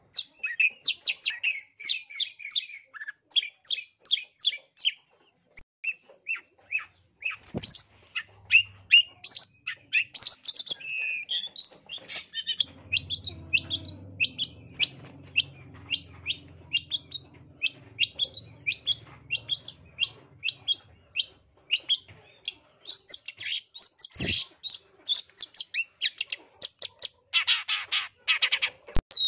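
Long-tailed shrike (cendet) singing a fast, unbroken string of short, sharp chattering notes with only brief pauses, the aggressive 'narung' song of a bird in fighting mood. Near the end it gives a harsh, buzzy rasp lasting about two seconds.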